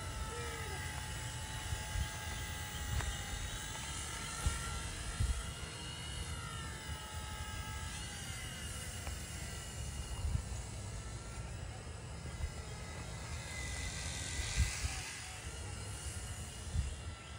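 Small E129 radio-controlled model helicopter in flight: a high motor and rotor whine that rises and falls in pitch as it manoeuvres.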